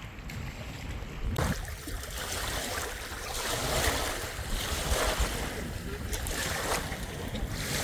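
Steady rushing noise of wind and moving water, cutting in suddenly about a second and a half in.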